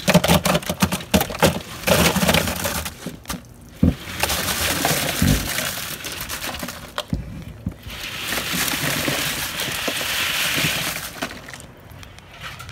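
Boiled crawfish being poured into a plastic ice chest. For the first few seconds the hard shells clatter onto the cooler's bottom in many sharp knocks. Then comes a rushing slide as the growing pile pours in, in two long pours.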